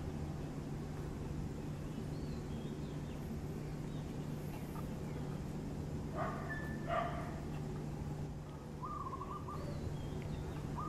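A few short animal calls, two sharp ones about six and seven seconds in and a short held call near nine seconds, over a steady low background hum.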